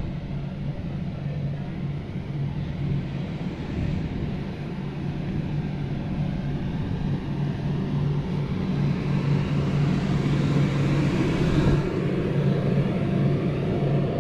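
Electric blower fan keeping an inflatable bounce house inflated, running with a steady low hum. It grows louder and more rushing about two-thirds of the way through, as the blower comes close.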